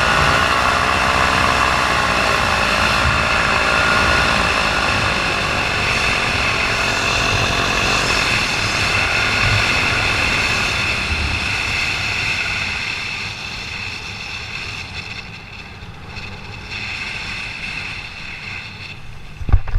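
Paramotor engine and propeller running in flight, its pitch wavering in the first few seconds; the engine was losing power. The sound grows quieter from about twelve seconds in, and a sharp thump comes near the end.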